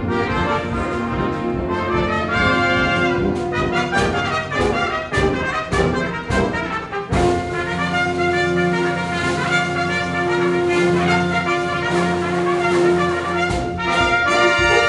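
Trumpets playing: a passage of short, detached notes, then long held notes from about halfway, with a change of chord near the end.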